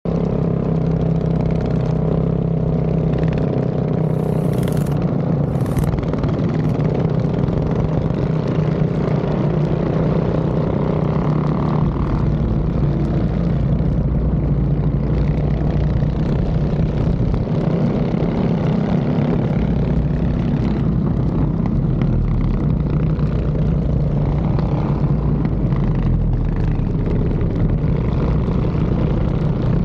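Mini bike engines running steadily under way, a continuous engine drone whose note shifts a few times.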